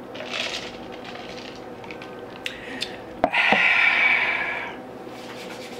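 People drinking from plastic cups: a short slurp, a few small clicks and a sharp knock, then a loud breathy sound of about a second and a half.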